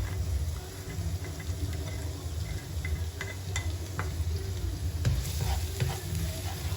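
Chopped garlic and ginger sizzling as they fry in hot oil, stirred in the pan, with a few light clicks of the utensil against the pan.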